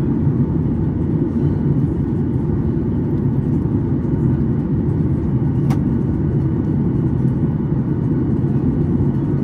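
Steady cabin noise inside a Boeing 737 MAX 8 airliner: a constant low rumble of airflow and its CFM LEAP-1B engines. A single sharp click sounds a little past the middle.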